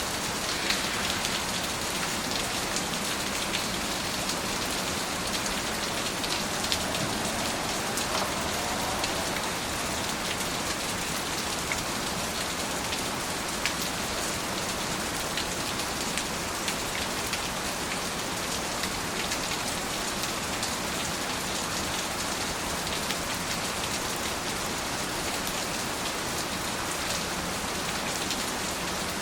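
Steady rain falling, an even hiss with many separate drops ticking on a hard surface.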